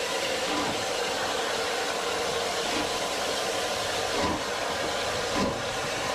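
Steady hiss of steam from a Southern Railway Q1 0-6-0 steam locomotive, with a couple of brief louder knocks in the second half.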